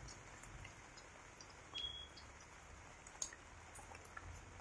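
Faint light rain, with scattered drops ticking and dripping. A brief high beep-like tone sounds about two seconds in, and a sharp click a little after three seconds.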